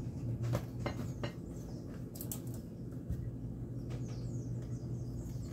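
A few light clicks and taps from a spice container being handled while black pepper is shaken onto chicken, mostly in the first half, over a steady low electrical hum.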